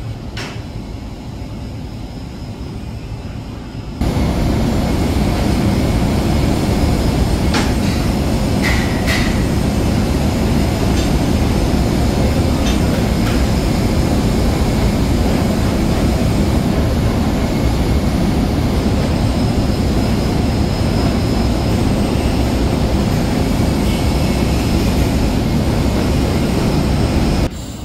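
Steady loud mechanical rumble of running machinery, with a few faint clicks. It starts abruptly about four seconds in and cuts off just before the end, after a quieter stretch at the start.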